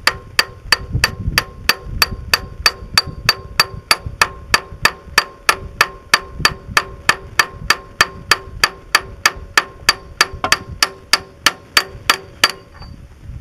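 A ball-peen hammer taps a brass drift in a steady rhythm, about three to four light metallic taps a second, each with a brief ring. It is driving the crankshaft timing gear onto the crank of a David Brown 1200 tractor engine. The taps stop near the end.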